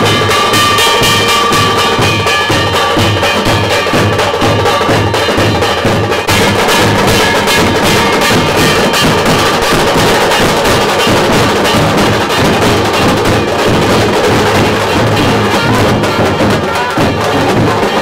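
Street band of big double-headed drums beaten with sticks in a fast, steady rhythm, loud and continuous, with a trumpet line playing over the drums, most clearly in the first few seconds.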